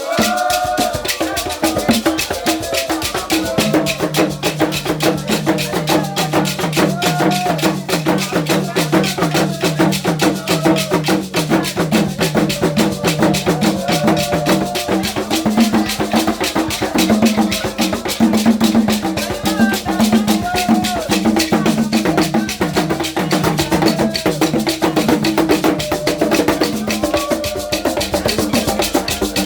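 Women singing a Dida funeral lament over fast, steady drumming and percussion.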